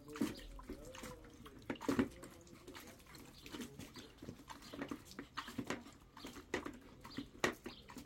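Shiba Inu splashing and pawing at water in a drinking bowl: irregular splashes and slaps, the loudest about two seconds in.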